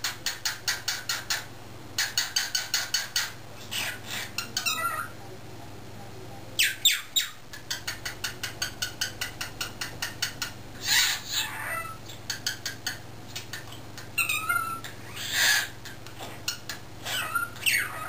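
Cockatiel chattering: quick runs of short, high chirps, about seven a second, broken by a few longer drawn-out calls that bend in pitch.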